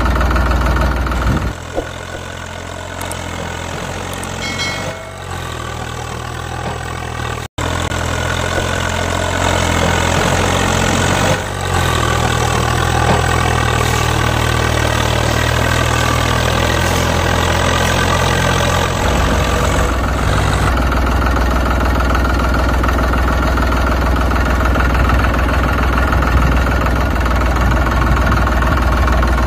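Tractor engine idling steadily, with a few abrupt shifts in pitch and loudness and one brief dropout, as where separate recordings are joined.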